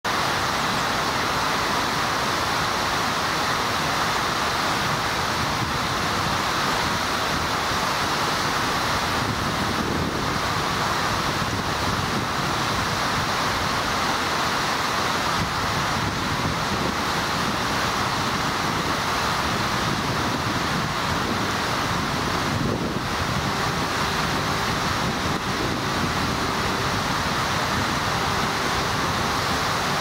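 Steady, even rushing noise with no distinct bird song standing out above it.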